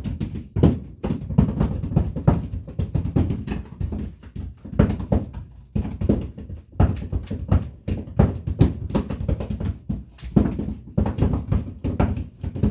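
Copper winding being pulled and wound off a lamp ballast's coil, the ballast bouncing and knocking with a dense, irregular clatter of knocks and rattles.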